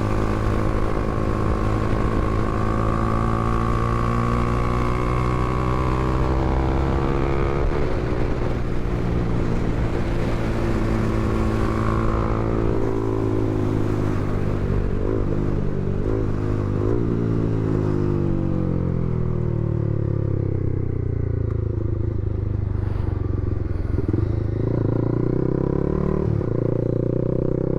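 Honda CBR300R's single-cylinder engine running under way, its pitch holding steady, then falling for several seconds through the middle and climbing again near the end.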